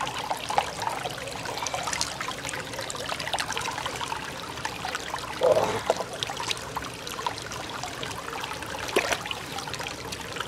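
Water trickling steadily, with scattered light clicks of large freshwater mussel shells being shifted on wet stone and one louder knock about five and a half seconds in.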